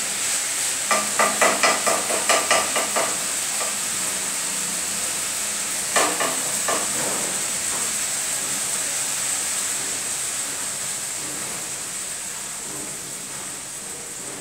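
A spoon stirring and scraping curry in a pan, about four quick strokes a second for a couple of seconds, then a single clatter about six seconds in. Under it the curry sizzles steadily, slowly getting quieter.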